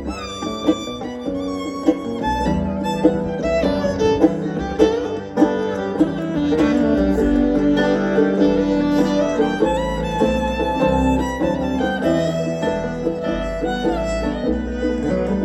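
Bluegrass band playing an instrumental break, a fiddle taking the lead over picked acoustic guitar and bass notes.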